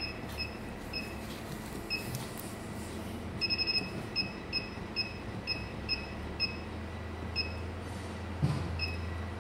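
Refrigerated centrifuge control panel beeping at each key press: short, identical high beeps at uneven spacing, with a quick run of about five a third of the way in, as the rotor setting is stepped through with the plus key.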